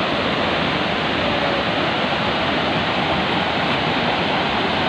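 Waterfall rushing, heard close: a loud, steady, unbroken hiss of falling water.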